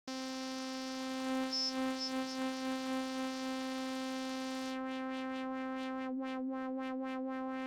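One held note from the Vital software synthesizer, a bright buzzy tone rich in harmonics, played while the filter's resonance is raised to accent one frequency band. A high resonant peak briefly stands out about a second and a half in. From about five seconds in, the upper part of the tone flutters rapidly.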